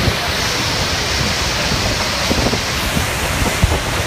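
Steady heavy rush of Niagara's Horseshoe Falls at close range, with wind and spray buffeting the microphone. A brighter hiss sits on top for the first three seconds or so.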